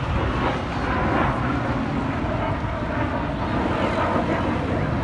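F-16 fighter jet in a display flight, its jet engine heard as a steady, even rush of noise.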